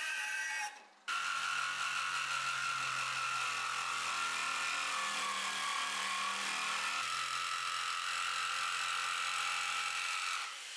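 A bandsaw runs briefly, then after a short break about a second in, an electric jigsaw cuts steadily through a pine board with an even motor whine.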